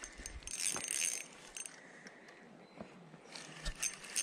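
Spinning reel being cranked to bring in a hooked trout, a fast metallic clicking and rattling in two spells, the second near the end.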